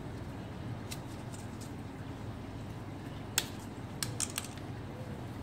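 White thread-seal tape being wrapped onto the threads of a plastic pipe union, with a sharp click about three and a half seconds in and a few smaller clicks just after as the tape and fitting are handled. A steady low hum runs underneath.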